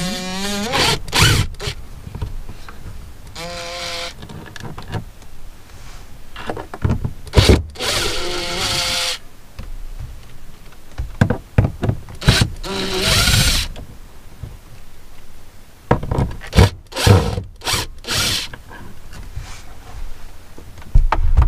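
Cordless drill-driver running in four short spurts, each rising in pitch as the motor spins up, as it works the screws of a solar charge controller's mounting. Sharp knocks and clicks of handling fall between the runs.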